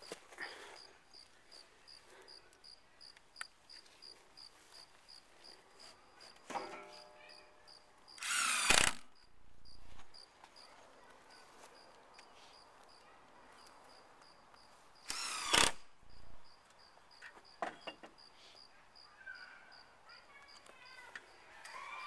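Crickets chirping steadily, about two chirps a second, while a power drill runs twice in short bursts of under a second, about eight and fifteen seconds in.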